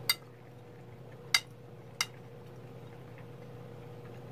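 A metal spoon clinking sharply against a bowl three times in the first two seconds while food is scooped up, over a steady faint low hum.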